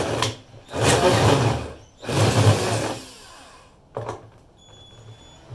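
Front-loader washing machine drum being shifted into place on wooden blocks: three rough scraping bursts of about a second each, then a single knock about four seconds in.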